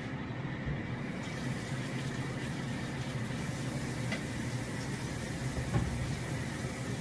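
Kitchen faucet running, water pouring into a pot to fill it, starting about a second in as a steady hiss.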